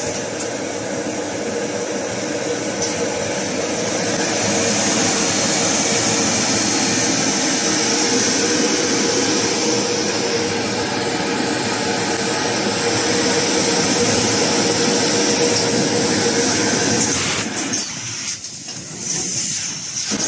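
Toilet roll bundling machine running: a steady mechanical din with a constant hum through it. The noise drops and turns uneven, with a few knocks, a few seconds before the end.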